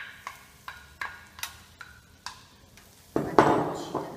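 Butter melting in a hot frying pan, crackling with scattered sharp pops. About three seconds in, a louder rush of sizzling as a wooden spatula pushes the butter across the pan.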